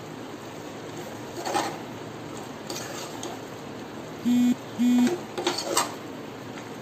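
A steel ladle scrapes and knocks in a pot while stirring a thick beef masala. About four and a half seconds in there are two short buzzing electronic beeps, close together, louder than the stirring.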